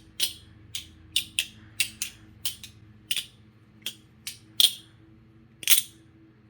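Balisong (butterfly knife) being flipped: about a dozen sharp metallic clicks and clacks at uneven spacing as the handles swing round and strike each other and the blade tang. The two loudest clacks come near the end, with the last one about six seconds in.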